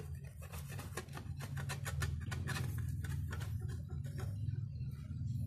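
A metal scraper blade scraping leftover husk fibre off a coconut shell in quick repeated strokes, about three or four a second, over a steady low hum.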